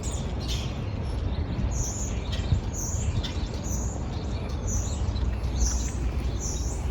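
A small bird chirping, one short high call about once a second, repeated six times, over a steady low rumble.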